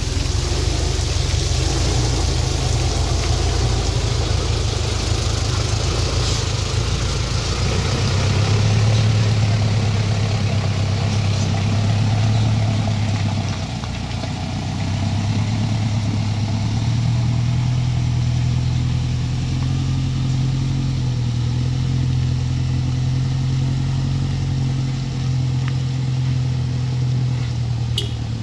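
Motor vehicle engine running on the steep road, a low steady drone that rises in pitch and grows louder about 8 seconds in, dips briefly around 14 seconds, then holds higher again.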